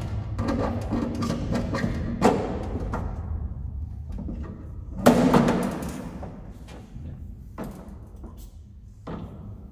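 Knocks and clunks of cables and hands against a sheet-steel electrical enclosure as cables are fed and dressed inside it, the loudest a bang with a brief ring about five seconds in, over a steady low rumble.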